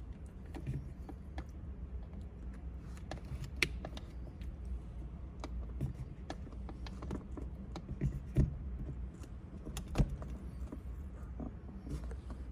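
Small clicks and taps from handling plastic dashcam parts and peeling off their protective films, with a few sharper clicks standing out, over a steady low hum.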